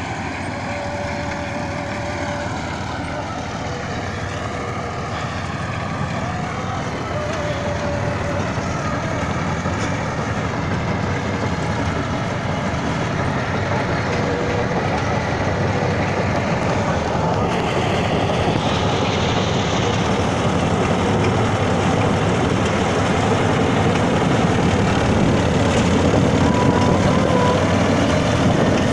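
Rice harvesting machine running steadily under load, a continuous engine and machinery noise that grows gradually louder.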